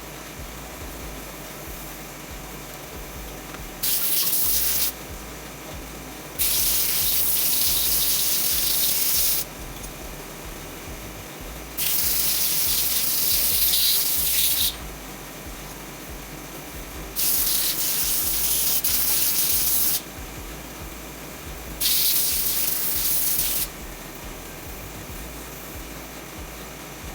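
Five bursts of spraying hiss, each about one to three seconds long, starting and stopping abruptly over a steady low hum.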